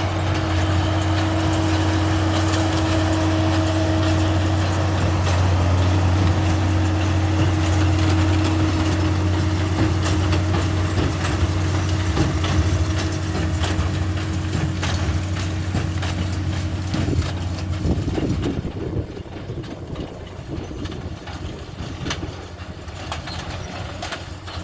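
Fendt 712 tractor pulling a Supertino big square baler through straw: a steady engine drone with a clatter of short knocks. About three quarters of the way through the drone drops away, leaving a quieter rattle.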